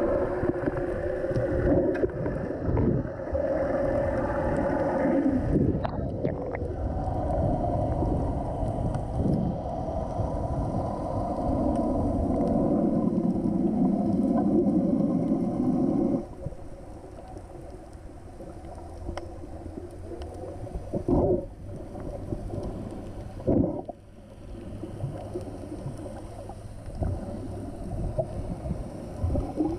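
Muffled underwater sound picked up through an action camera's waterproof housing while snorkelling: a droning rumble that is loud for about the first half, then drops to a quieter rumble over a steady low hum. Two short knocks come about two-thirds of the way in.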